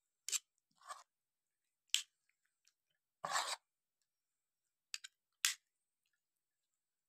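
Metal forks scraping and clicking against a ceramic plate as thick spice paste is rubbed onto raw fish pieces: a run of short, separate scrapes, the longest about three seconds in.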